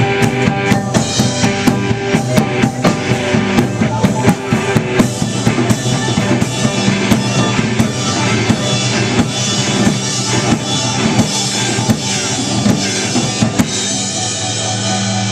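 Live indie rock band playing an instrumental passage: a drum kit with bass drum and snare hits driving under sustained bass and guitar chords. Near the end the drums stop and a chord rings on.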